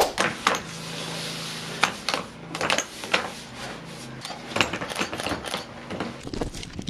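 Pipe-bursting rig pulling a bursting head and new plastic pipe through the old line: a run of sharp, irregular clicks and cracks as the old pipe is broken, over a steady machine hum that stops about halfway through.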